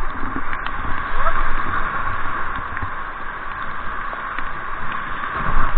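Rushing whitewater of river rapids heard from an inflatable raft: a loud, steady rush, with a few short knocks.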